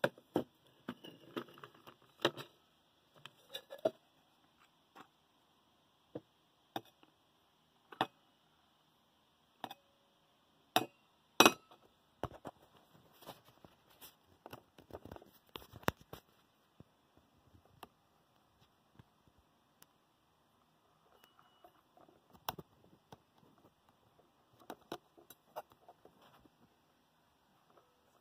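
Handling noise: scattered light clicks and knocks, a few sharper than the rest, as a small LTD Stirling engine and its parts are moved about and set down on a wooden table.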